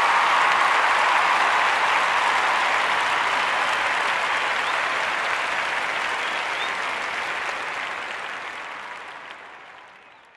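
Applause, a dense steady clapping that fades out gradually over the last five seconds or so.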